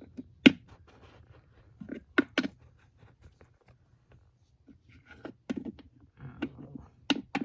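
Handling noise: a run of irregular clicks and taps as small plastic toy figures are moved and set down, the sharpest tap about half a second in.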